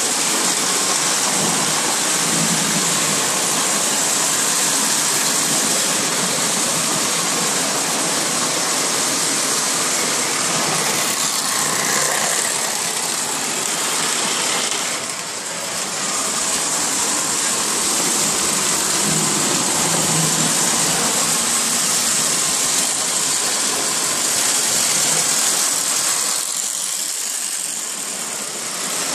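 Lionel O-gauge model trains running on steel track: a steady rushing rumble of motors and wheels, dipping briefly about halfway through and again near the end.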